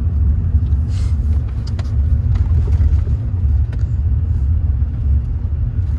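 Steady low rumble inside the cabin of a BMW E36 323is, its 2.5-litre straight-six engine running as the car moves at low speed.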